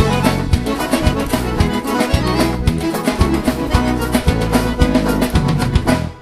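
Instrumental sertanejo dance music: an accordion plays the melody over a steady bass and drum beat. The music stops near the end.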